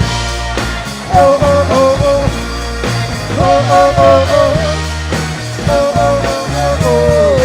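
Rock band playing live: a melodic lead phrase repeats about every two to three seconds over bass and drums.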